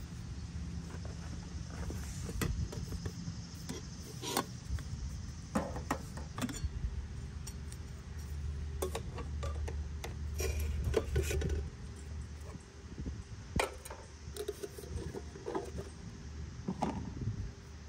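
Scattered light clicks, clinks and knocks of small objects being handled, over a low steady hum that grows louder for a few seconds in the middle.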